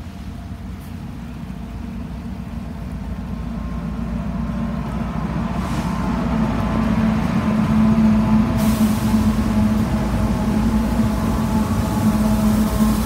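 BNSF diesel-electric locomotives leading a freight train, running as they approach and pass close by. Their steady low engine drone grows louder throughout, and a hiss joins about two-thirds of the way in as the units pass.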